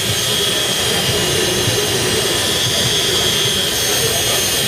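Drill running steadily at high speed, spinning a 1500-grit sanding disc against a plastic headlight lens: a steady high whine over the hiss of the disc on the plastic.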